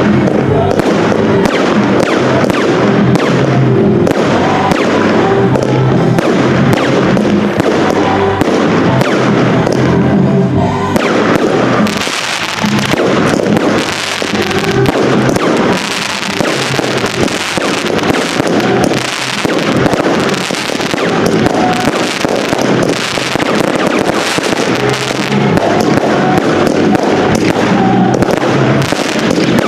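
Fireworks display: a rapid run of shell bursts and pops over music with a steady beat. About twelve seconds in, dense crackling takes over for several seconds.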